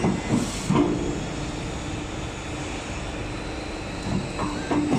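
Wave plate roll forming machine running: a steady mechanical hum with a constant low tone, with a few short knocks about half a second in and again near the end.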